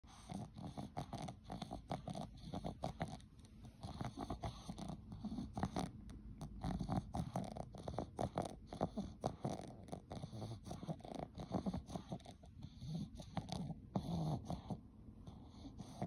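Boston Terrier snoring and snuffling in its sleep, a rough, fluttering snore on breath after breath, rising and falling every second or two.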